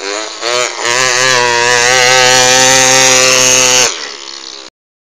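A child imitating a chainsaw with his voice: an engine-like drone that revs up over the first second, holds high and steady, then drops away about four seconds in and cuts off.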